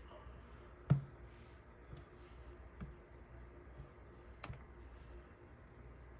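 A few small, sharp clicks and taps of metal lock parts being handled while a dimple lock is taken apart, the loudest about a second in.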